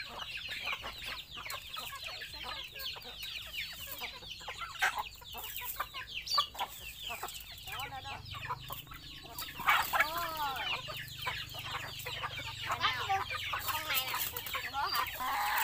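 A flock of chickens clucking, with many short calls throughout and a louder burst of calls about ten seconds in.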